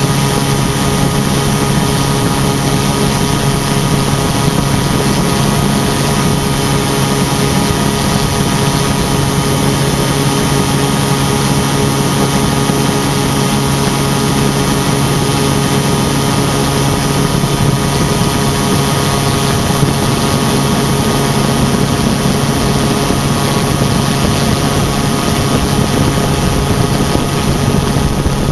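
Quicksilver MX ultralight's two-stroke engine and pusher propeller droning at a steady pitch in flight, with rushing wind over the exposed airframe.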